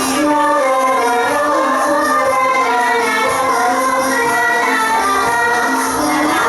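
Likay theatre music: a voice sings a melody in held, sliding notes over instrumental accompaniment.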